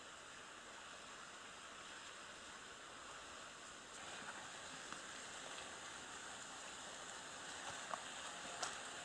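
Faint, steady outdoor background hiss with no distinct source. It gets a little louder about four seconds in, and a few faint ticks come near the end.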